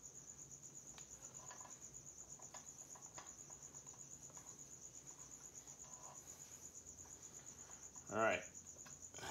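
Cricket chirring steadily as a fast, even, high trill, with faint small clicks of parts being handled at the motorcycle's front axle. One short, louder pitched sound comes about eight seconds in.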